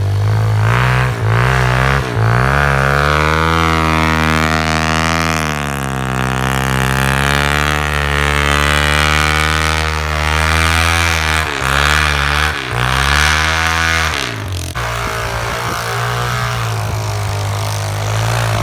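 2004 Suzuki DR-Z110 pit bike's small four-stroke single engine revved hard and held at high revs, wavering as the bike struggles for traction in deep snow, with a few brief throttle dips. About 14 seconds in, the revs fall away and settle to a lower, steady run.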